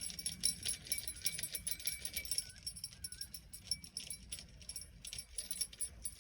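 Rapid, continuous metallic jingling and ticking from fishing tackle while a catfish is being reeled in, with a low rumble underneath.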